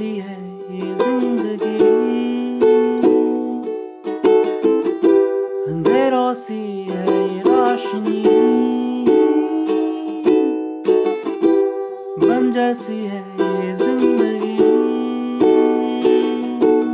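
Ukulele strummed in a steady rhythm, with a voice holding long wordless sung notes over it that slide up into pitch about every six seconds.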